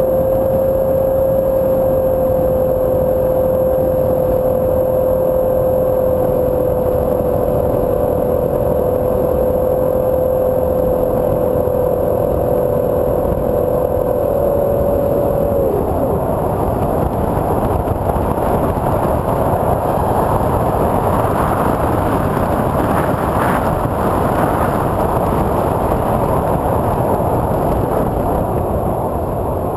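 TwinStar II RC plane's twin electric motors spinning 8x6 propellers with a steady whine, heard on board over wind rushing past the airframe. About halfway through the motors throttle back and the whine drops away, leaving mostly wind rush, and the whine starts climbing again at the very end.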